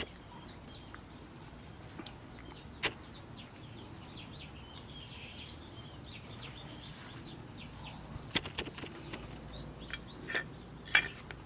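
Birds chirping in the background, many short falling chirps one after another, with a few sharp clicks, mostly toward the end.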